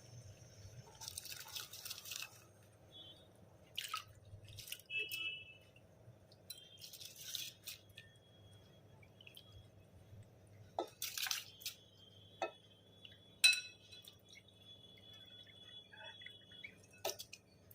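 Washed basmati rice being tipped into a pot of boiling water, heard as three short hissing or rustling bursts. Sharp metal clinks of utensils against the pot come mostly in the second half, some ringing briefly, over a low steady hum.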